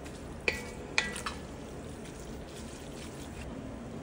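Two sharp, ringing clinks of a utensil against cookware, about half a second apart, with a softer tap just after, over a low steady hiss.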